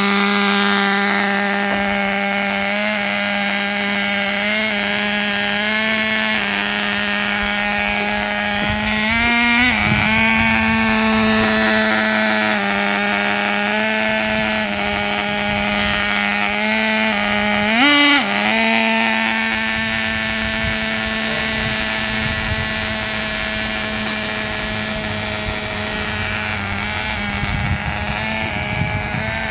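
Traxxas TRX 3.3 two-stroke nitro engine running at a high, steady pitch. It revs up briefly about a third of the way in and again about two-thirds in, then settles back.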